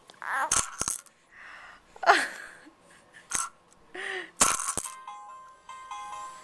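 Baby squealing and babbling, with a few sharp knocks of a toy being hit. About five seconds in, an electronic baby toy starts playing a beeping tune.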